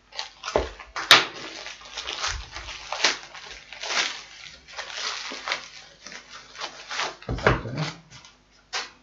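Thin plastic mailer bag rustling and crinkling as it is torn open by hand, with a sharp snap about a second in. A low thump near the end as a small cardboard box is handled on the table.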